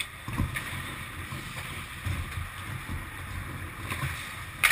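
Ice hockey play: skate blades scraping and carving on rink ice, with scattered sharp clacks of sticks and puck and one loud crack near the end.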